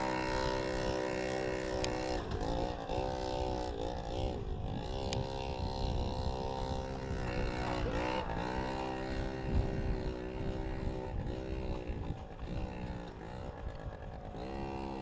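Small motor scooter engine running close by, its pitch rising and falling again and again as it is revved and eased off.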